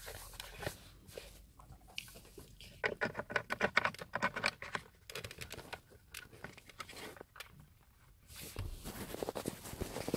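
Hands handling a plastic car Bluetooth module at its mounting: a quick string of light clicks, taps and scrapes, densest in the first half, then rustling near the end.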